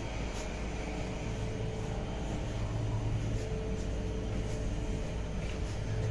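Škoda EJ575 electric train standing at a station, its on-board equipment humming steadily with a low drone and a faint higher tone. The low hum swells a little about halfway through, and there are a few light ticks.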